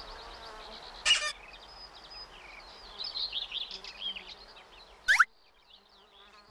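Birds chirping and singing. A short loud burst comes about a second in, and a quick rising glide in pitch comes about five seconds in, after which the birdsong stops.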